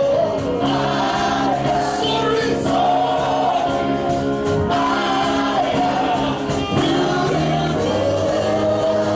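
Gospel music: a choir singing together over a steady beat.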